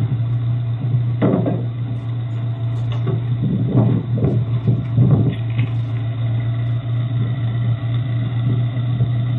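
Engine of a Suzuki Samurai converted into a rail cart, running steadily with a low hum, with a few louder rough clunks and rumbles in the first half.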